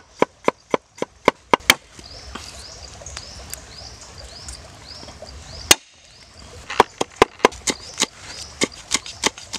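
A heavy cleaver chopping on a wooden chopping board in quick, even strokes of about four a second, mincing turmeric and lemongrass. The chopping stops for a few seconds, with one single strike in the pause, and starts again near the end. A high chirp repeats about twice a second during the pause.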